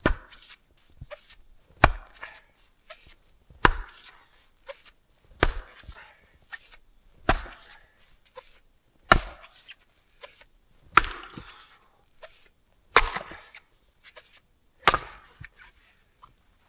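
An axe chopping into a log: nine heavy strikes about two seconds apart, with lighter knocks of wood between them.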